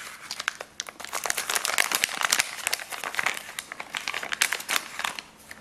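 Metallized anti-static bag crinkling as it is handled and pulled open around a circuit board: a dense, irregular run of sharp crackles.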